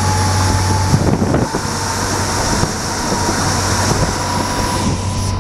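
Train running at speed, heard from inside the carriage at the window: a steady rumble of wheels on the rails with a low hum, a thin whine that slowly rises in pitch, and scattered knocks over the rail joints, the loudest about a second in.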